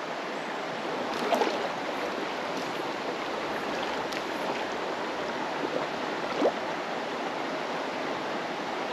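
Small creek running, a steady even rush of water, with two faint brief sounds about a second and a half in and again near six and a half seconds.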